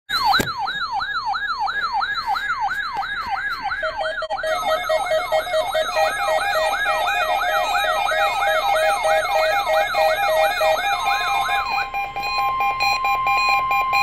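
Several weather alert radios sounding their alarms together for a Required Weekly Test. A falling whoop repeats about twice a second, with pulsing beeps layered over it, and a steady tone joins near the end.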